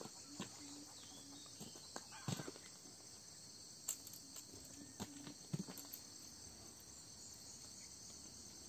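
Steady high-pitched insect chorus, with scattered brief rustles and knocks from a pole pushed through the undergrowth.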